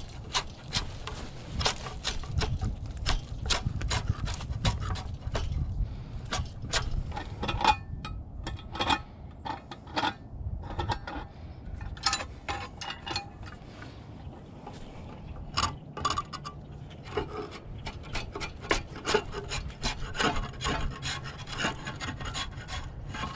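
Draw knife stripping bark from a log: quick, irregular scraping strokes of the blade across the wood.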